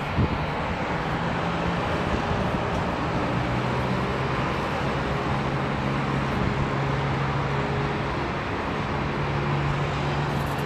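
Steady wash of distant road traffic from a busy highway below, with a low hum underneath that shifts in pitch a few times.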